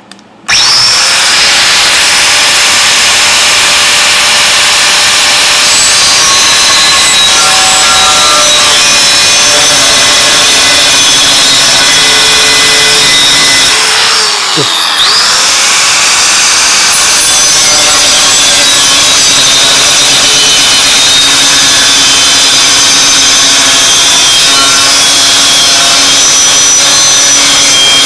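A 4.5-inch angle grinder with a cutoff wheel starts abruptly and cuts through 1/8-inch steel plate with a loud, steady whine. About halfway its pitch dips and comes back up as the wheel eases off the cut.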